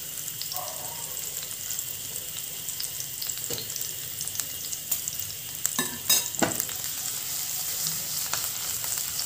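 Green chillies and ginger strips sizzling and crackling in hot ghee in a frying pan over a low gas flame, the tempering (tadka) stage. A few sharp knocks sound about six seconds in.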